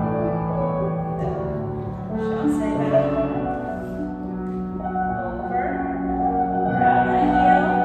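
Slow instrumental music with long held notes, played as accompaniment for ballet barre exercises.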